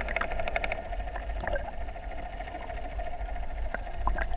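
Steady mechanical hum on a fishing boat with a low rumble underneath, and a few light clicks.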